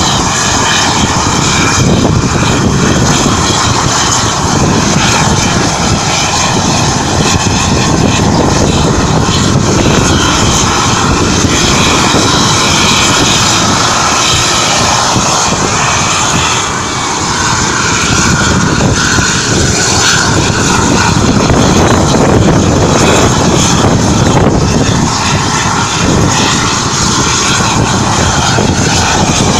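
Mexican Navy military helicopter running on the ground, its turbine engine and rotor making a loud, steady noise.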